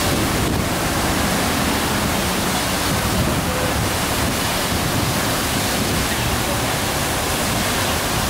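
Steady rush and splash of water blasting out of a fire hydrant that appears to have been knocked off, a jet about 50 feet high falling back onto the pavement.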